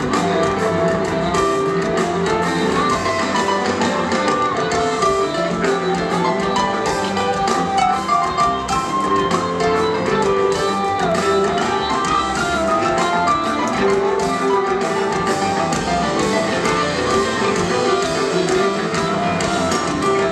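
Live rock band playing in concert, with drums and percussion prominent among the guitars and keyboards.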